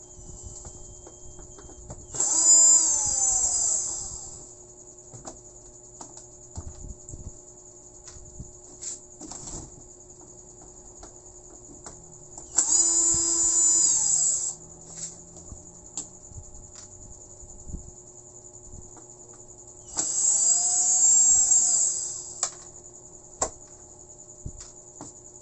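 Cordless electric screwdriver running in three bursts of about two seconds each, backing the screws out of a CRT TV's plastic rear cover. Each burst ends with the motor's pitch falling as it winds down. Light handling clicks fall between them.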